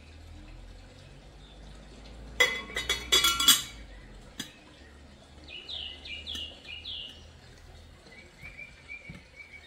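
Kitchenware clinking in a quick cluster of sharp strikes a couple of seconds in, then a bird chirping: a run of about five falling chirps in the middle and softer repeated chirps near the end.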